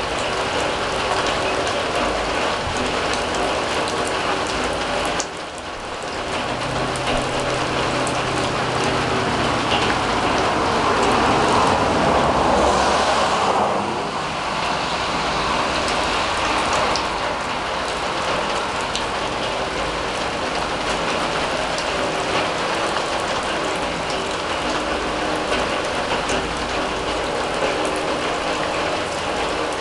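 Steady rain falling on a steel drum and the yard, with drips landing close by. About halfway through, a passing vehicle swells and fades under the rain.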